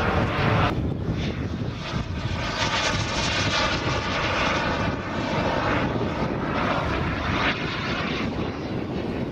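Single B300F model jet turbine of a 1/5 scale RC English Electric Lightning running in flight: a steady jet rush with a faint high whine above it.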